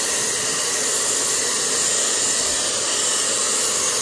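Jellyfish handheld pet dryer running steadily, blowing air with an even, unbroken rush.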